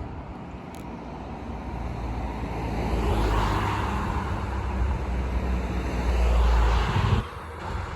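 A motor vehicle drives past close by; its engine rumble and tyre noise grow louder to a peak, then cut off abruptly about seven seconds in.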